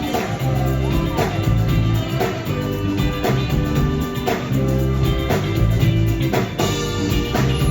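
Live highlife band playing an instrumental passage: electric guitar lines over bass and a drum kit keeping a steady beat.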